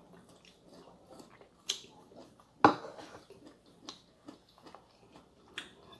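Close-up eating sounds: quiet chewing with scattered small clicks of chopsticks against bowls and plates, and one sharper knock about two and a half seconds in.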